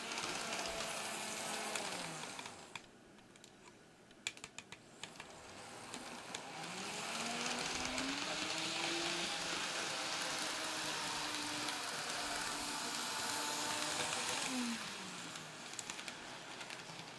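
Kato N-scale AC4400CW model locomotive running with its freight cars: an electric motor whine over the whir of small wheels on track. The whine drops and fades about two seconds in, leaving a quieter stretch of light clicks, then rises again around seven seconds in, holds steady, and falls away near the end as the train passes close by and moves off.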